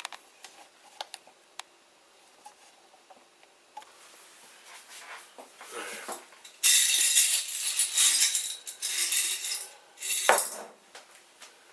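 Light clicks and taps from handling parts and tools, then about three seconds of loud metallic clattering and scraping, with a shorter burst a little later.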